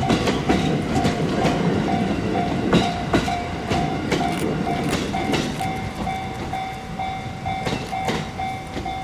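A Japanese level-crossing bell rings in a quick, steady rhythm while the towed 205-series electric train cars roll past, their wheels clicking over rail joints. The rumble and clicks fade as the last car clears the crossing.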